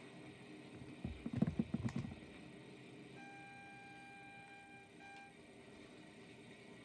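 A brief clatter of knocks and thumps, then a steady electronic beep lasting nearly two seconds, followed by a short second beep at the same pitch.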